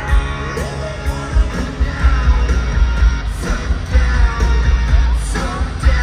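Hard rock song with a shouted, singing vocal, guitars and a heavy drum beat, played loud over a stadium PA system and heard in a large echoing arena.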